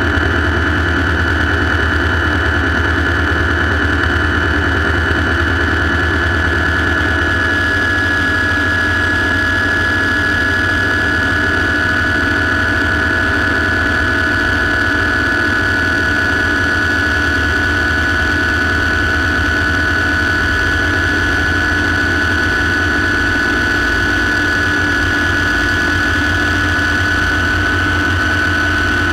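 Light turbine helicopter's engine and rotor running steadily on the ground, heard from inside the cockpit: a high, even turbine whine over a low rotor drone.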